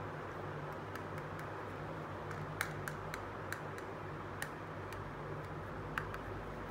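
Small plastic toy pieces handled by hand, giving a handful of sharp light clicks and taps over a steady low background hum.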